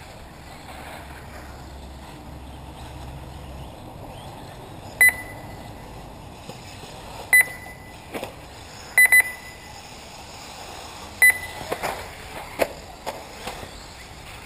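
Short, high electronic beeps from the race's lap-counting system, one as each RC buggy crosses the timing line: five at uneven intervals, two of them in quick succession about nine seconds in. A few sharp knocks follow near the end.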